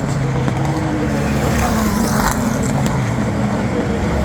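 Race car engines running at speed on the circuit: a steady, overlapping drone whose pitch slowly shifts as cars go by, with a few faint cracks mixed in.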